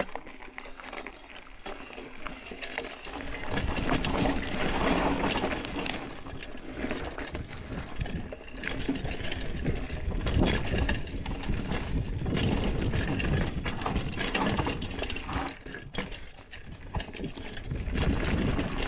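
Hardtail mountain bike being ridden down a dirt trail: a continuous clattering rattle of the bike over rough ground, full of fast clicks, with a low rumble underneath. It is quieter for the first few seconds and louder from about three seconds in.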